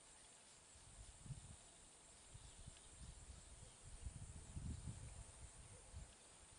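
Near silence: faint outdoor ambience with a steady high hiss, and soft, irregular low rumbles from about a second in until near the end.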